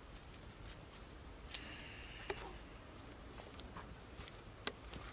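Faint outdoor background with three short, sharp clicks spread across a few seconds, the last one the loudest, and a faint high chirp now and then.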